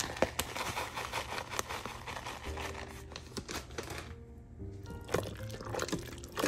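A plastic bag crinkling as shredded cheese is shaken out of it, and a spoon stirring thick cheesy pasta in an Instant Pot's stainless steel inner pot, with soft background music.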